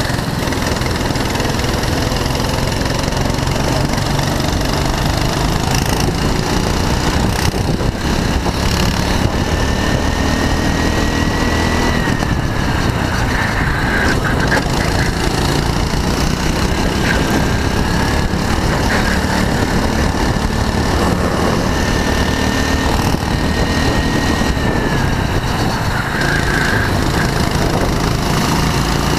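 Go-kart engine heard onboard at speed, a loud steady drone whose pitch climbs slowly as it revs up, drops off about twelve seconds in, then climbs again and falls once more near the end.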